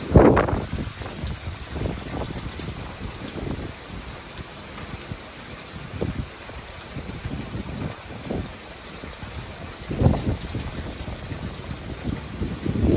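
Steady rain falling, with gusts of wind buffeting the microphone in short bursts, the strongest at the very start and about ten seconds in.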